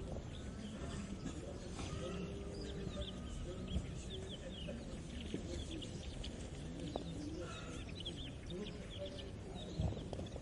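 Farmyard morning ambience: many small birds chirping in quick, overlapping notes, with chickens clucking and a steady low rumble underneath.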